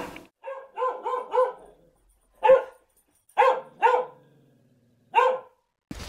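A dog barking: a quick run of three barks about a second in, then four single barks spaced out.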